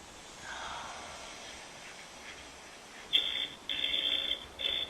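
Electronic EMF meter alarm going off: a high-pitched beeping in short uneven pulses, starting about three seconds in.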